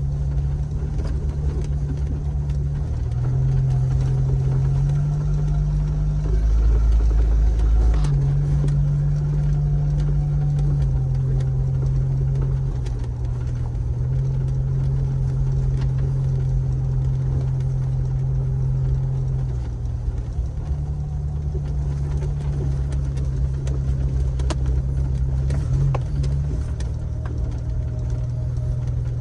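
Jeep engine running at low speed, its pitch stepping up and down every few seconds as the throttle changes, with a few sharp knocks.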